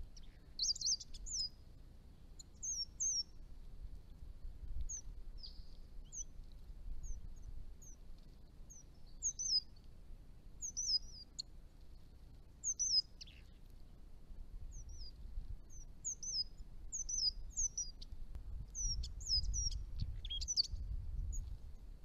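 Chestnut-rumped Thornbills calling: a string of short, high, thin chirps that slide downward in pitch, often coming in quick twos and threes.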